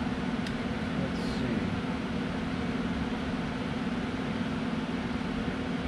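Steady low mechanical hum that holds an even level throughout.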